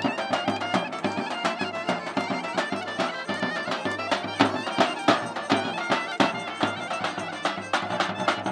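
Bulgarian folk dance music played live by a street band: a clarinet carrying the melody in quick runs of notes over accordion, with a large double-headed drum struck with a stick in a steady, regular beat.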